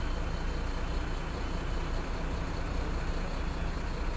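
Heavy diesel engine running steadily with a low, even hum.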